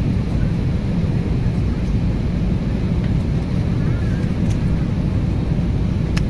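Airbus A320neo cabin noise on final approach: a steady low rumble of the engines and rushing air.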